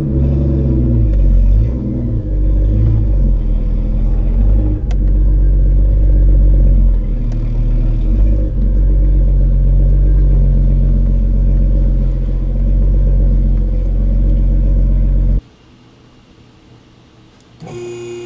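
Jeep Cherokee XJ's 4.0-litre inline-six running, with a few small rises and falls in revs at first and then a steady note; it stops suddenly about fifteen seconds in.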